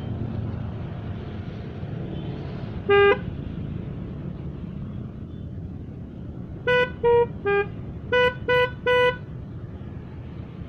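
Telolet multi-tone horn on a Honda Vario scooter, sounding one short toot about three seconds in, then six quick notes near the end in two groups of three, the third note of the first group lower. A steady low engine and street rumble runs underneath.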